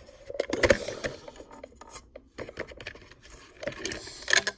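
A Dymo label maker's plastic casing and battery compartment cover being handled: irregular clicks, taps and light rubbing.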